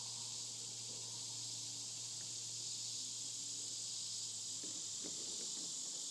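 Steady high-pitched chorus of insects such as crickets, running unbroken at an even level. A few faint short low notes sound behind it.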